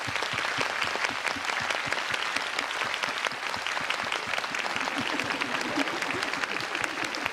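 Sustained applause from a theatre audience and the cast on stage: many hands clapping at once, at a steady level.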